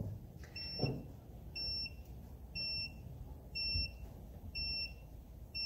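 Tymate tire pressure monitor beeping, a short high beep about once a second: its high-pressure alarm, set off by the newly fitted valve-stem sensor reading above the monitor's preset limit. A light knock about a second in.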